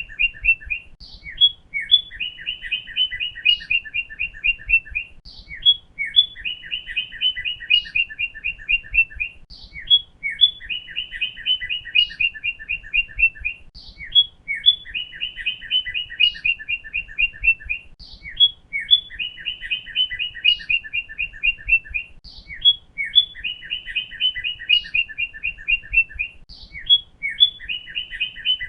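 Northern cardinal singing: the same phrase over and over, about every four seconds, each phrase a couple of high slurred notes followed by a fast run of short clear chirps.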